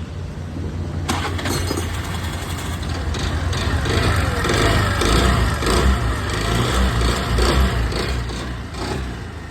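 Suzuki Access 125 scooter's single-cylinder four-stroke engine running noisily and revved up and down, loudest in the middle. The abnormal engine noise comes from a scored, worn piston.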